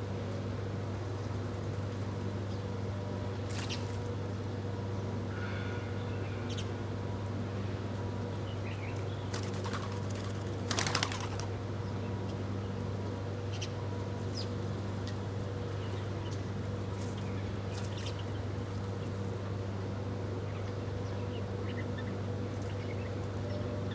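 Small birds feeding, giving scattered short chirps and clicks, with a brief loud flutter of wings about eleven seconds in, over a steady low hum.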